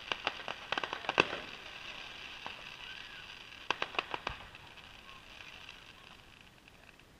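Fireworks popping: a quick run of sharp pops in the first second or so, another cluster of pops about four seconds in, then fading.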